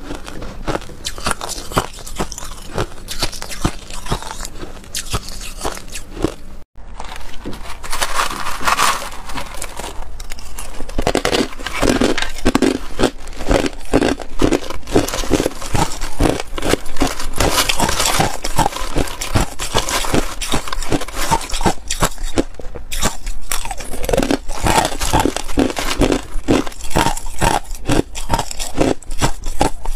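Ice being bitten and crunched between the teeth, close-miked: dense, crisp cracking, with a spoon scraping through crushed ice. A short break about seven seconds in, after which the crunching comes heavier.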